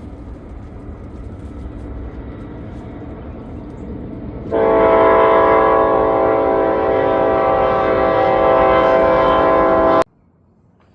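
A low rumble, then about four and a half seconds in a loud, steady horn blast held for about five and a half seconds, cut off abruptly near the end.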